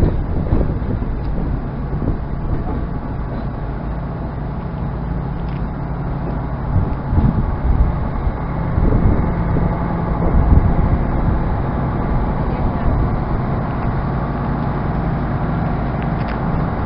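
Diesel engines of Red Hen railcars running steadily with an even low hum.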